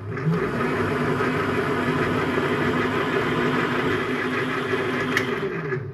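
Small benchtop lathe running steadily with its chuck spinning during a final thread-cutting pass on a small screw, then spinning down near the end.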